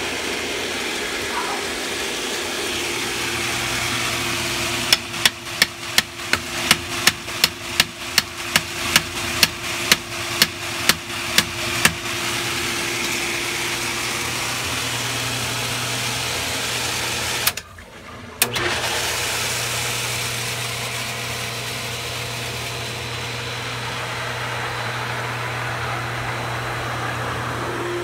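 Electric pool pump running steadily with a low motor hum. For several seconds early on about two sharp knocks a second sound over the hum, and a little past the middle the sound drops away for about a second before the hum carries on.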